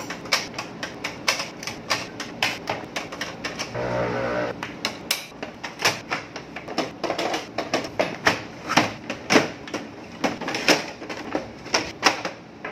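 Plastic parts of an HP Smart Tank inkjet printer clicking and knocking as they are fitted back together by hand: an irregular run of sharp clicks, several a second.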